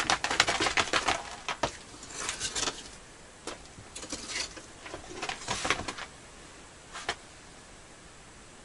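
Scattered clicks, light knocks and short rustles of a person moving about and handling things and clothing, thickest in the first couple of seconds and thinning out, with a last click near the end.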